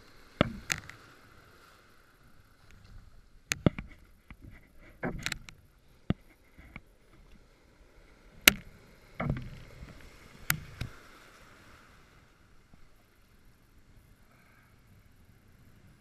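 Breaking surf washing around a rock, with a series of sharp knocks and splashes through the first ten seconds or so, the loudest about eight and a half seconds in.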